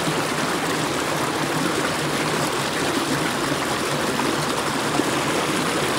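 River water flowing steadily, an even, continuous rush of noise, with a faint low hum underneath.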